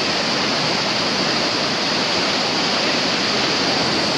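Loud, steady rush of churning whitewater at the foot of a waterfall.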